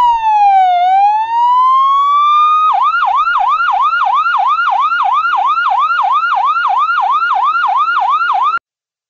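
Electronic ambulance siren. It starts as a slow wail, falling and then rising, and just under three seconds in switches to a fast yelp of about three or four sweeps a second, then cuts off suddenly near the end.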